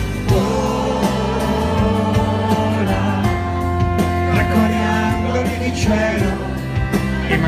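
Live band playing a slow pop ballad, with electric bass and acoustic guitar carrying the music and some singing over it.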